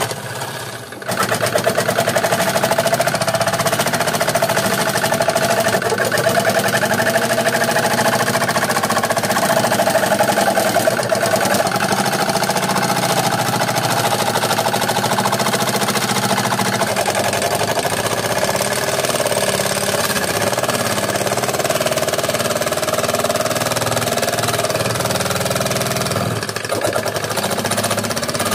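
An old sewing machine converted into a scroll saw runs steadily, its blade stroking rapidly up and down as it cuts through plywood. The sound dips briefly about a second in and again near the end.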